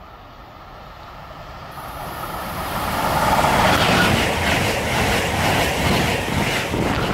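A train approaching and running through the station: a rushing, rumbling noise that builds over about three seconds and then stays loud.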